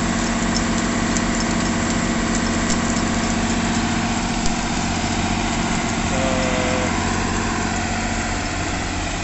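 Crawler piling rig's engine idling steadily.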